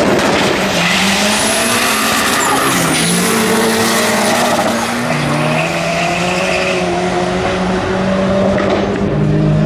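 Two drag-racing cars accelerating hard down the strip side by side, engines at high revs, their pitch dropping and climbing again in steps as they shift up through the gears.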